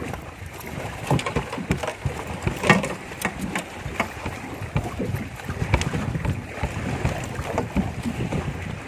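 Wind on the microphone and irregular water splashes and knocks around a small fishing boat while a hooked fish is fought and reeled in.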